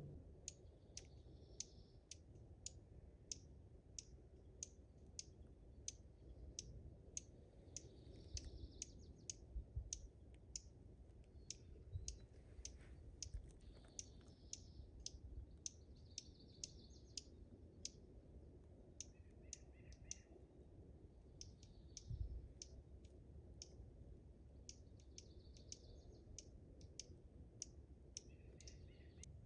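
Faint, steady clicking, a few sharp ticks a second, with short bird chirps now and then over a low outdoor rumble.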